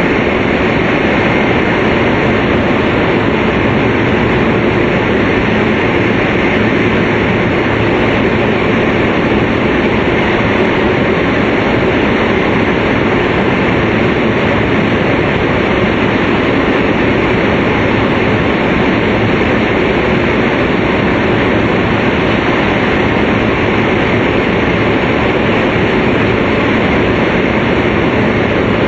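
Steady running noise of a Tōhoku Shinkansen Hayate train travelling at speed, heard inside the passenger cabin: an even rushing rumble of wheels, track and air that does not change.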